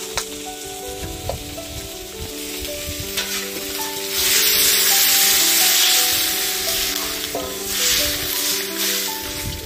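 Chicken curry frying in a kadai, then water poured into the hot pan about four seconds in, setting off a loud sizzle for about two seconds, then stirring with a metal spatula as it keeps sizzling. Background music with a melody plays underneath.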